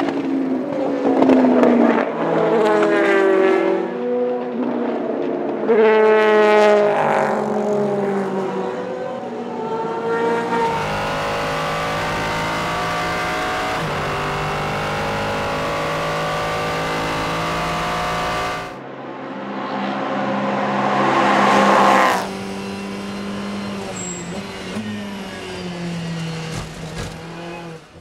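Endurance race car engines at racing speed. First, cars pass trackside, their pitch sweeping up and down through gearshifts. Then comes a steady high-revving engine note heard onboard, a rise in revs about two-thirds of the way through, and a quieter engine note near the end.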